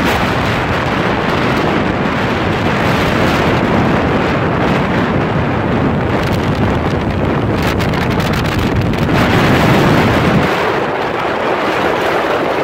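Wind buffeting the microphone on a small open motorboat under way, with the rush of water and the boat's running noise beneath it. About ten seconds in, the low rumble drops away.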